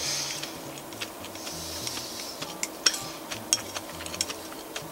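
Chopsticks clicking against dishes while a person chews a mouthful of food: a scattered series of short sharp clicks with soft hissy mouth sounds between them.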